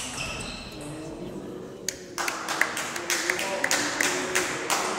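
Voices calling out, then from about two seconds in a handful of spectators clapping, quick and uneven, as a table tennis point ends.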